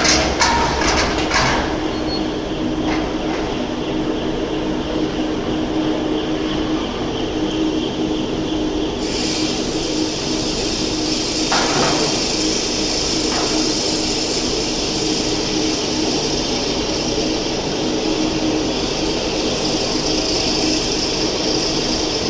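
Steady drone of furnace-hall machinery with a steady hum, a few knocks in the first second or so, and a hiss that switches on about nine seconds in and keeps going.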